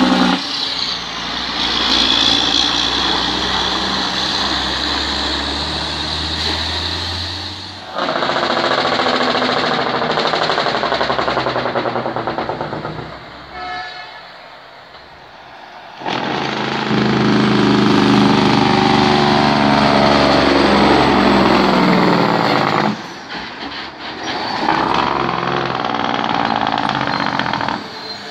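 Heavy tractor-trailer diesel engines running under load at close range, in several stretches that start and stop abruptly. In the later stretches the engine pitch sweeps down and then back up.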